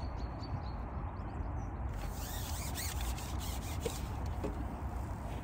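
Wind rumbling on the microphone. From about two seconds in it is joined by rustling and rubbing of clothing and gear being moved, with a few light clicks.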